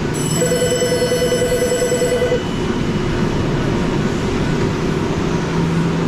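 A telephone ringing with a warbling trill for about two seconds near the start, then stopping, over a steady low background hum.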